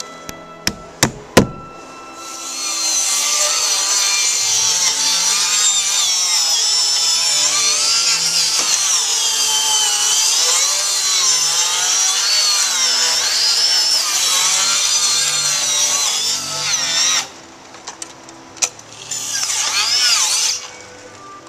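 A few hammer blows nailing cedar shingles, then a handheld power saw cutting wood for a long stretch, its pitch rising and falling with the load, stopping about 17 seconds in; a second short cut near the end.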